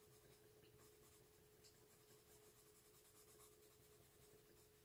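Faint scratching of a graphite pencil on paper as lines are drawn, over a steady faint hum.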